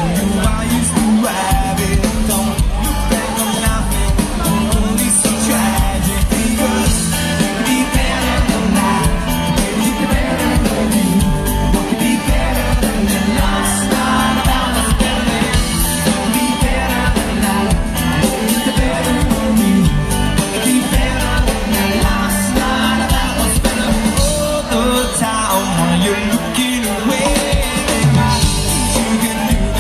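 A live band with a singer playing loud amplified music, with drum kit and upright double bass, heard from out in the audience.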